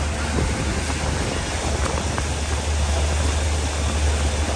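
Steady rush of wind on the microphone and churning water from a Tahoe T18 boat under way at speed, its outboard motor running underneath with a constant low rumble.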